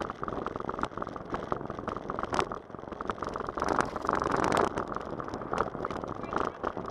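Bicycle tyres rolling over the planks of a wooden footbridge: a steady rumble with a dense run of clicks and rattles, louder for about a second midway.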